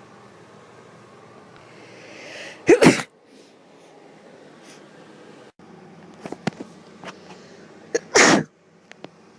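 Two loud sneezes about five seconds apart, the first coming after a rising breath in. A few faint clicks fall between them.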